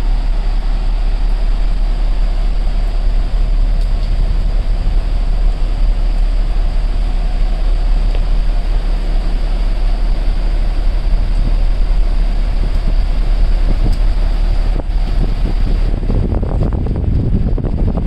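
Strong wind buffeting the microphone on a ship's open deck in a rough sea, a steady low rumble with the rush of wind and water, gusting harder near the end.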